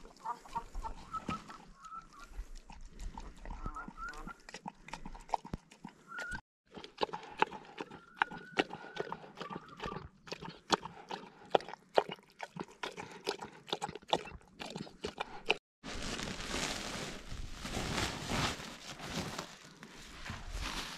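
Kangal shepherd dog lapping and gulping a wet mash of barley flour and soaked bread from a bowl: a quick, irregular run of wet clicks and slurps. About three-quarters of the way in it gives way to a louder, steady rustling of chopped feed being worked in a sack.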